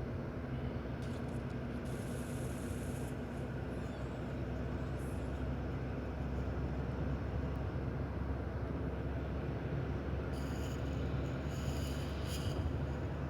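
Stomach rumbling: a steady low rumble, with brief higher hissing about two seconds in and again near the end.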